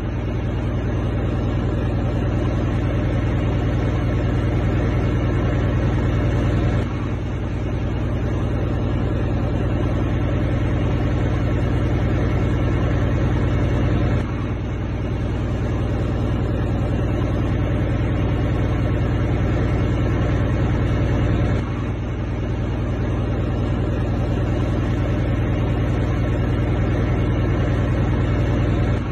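Large truck's diesel engine idling steadily, a deep even rumble, with small dips in level about every seven seconds.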